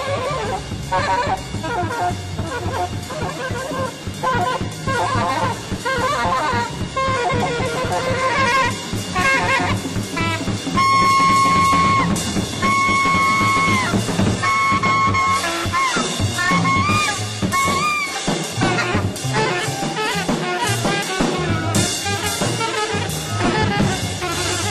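Free jazz from a large group: saxophones and trumpets playing over piano, double basses and drums in a dense, busy texture. From about eleven seconds in, a horn holds a series of long high notes.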